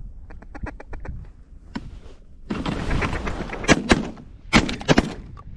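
Shotgun volley: several blasts in quick succession from about three and a half seconds in, as a group of hunters fire on ducks overhead. Before it, a quick run of light clicks and then a rustling shuffle.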